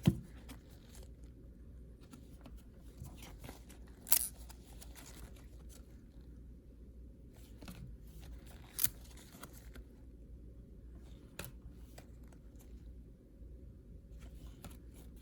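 Trading cards being handled: quiet rustling and sliding of cards, with a few sharp snaps a few seconds apart as cards are flicked or set down, over a low steady hum.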